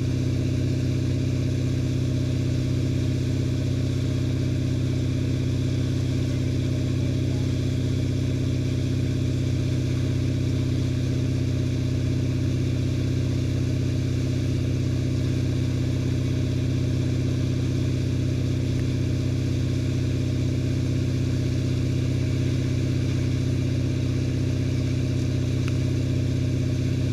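Tige wakesurf boat's inboard engine running steadily at a constant wakesurf cruising speed of about 10 mph, pulling a surfer while loaded with ballast. It is a loud, even drone with no change in pitch.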